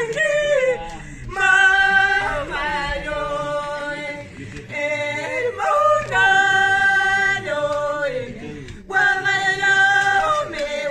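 Two women singing a warawi, a traditional Andean Quechua song, unaccompanied and in high voices. They hold long notes in four phrases, with short breaks between them.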